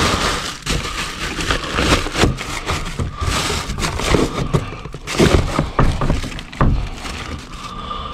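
Plastic bags and food packaging crinkling and rustling, with frequent knocks and clunks of items being shifted, as a gloved hand rummages through a dumpster full of discarded food.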